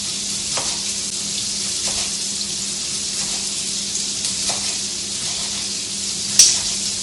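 Prawns and tofu frying in pans with a steady sizzling hiss, while a knife chops red cabbage on a cutting board in a few scattered strokes; one sharp, louder knock about six seconds in.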